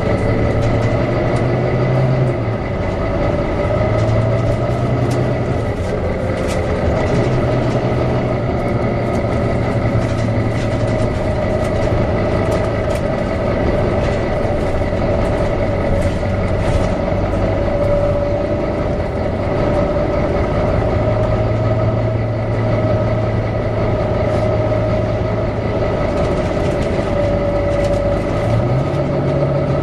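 Volvo B9TL double-decker bus running with its cooling fan whining steadily over the engine, the whine wavering slightly in pitch. A low hum drops in and out every few seconds.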